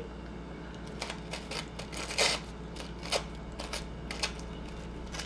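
Thin tissue paper being torn and rustled by hand: a run of short rips and crinkles, the longest about two seconds in.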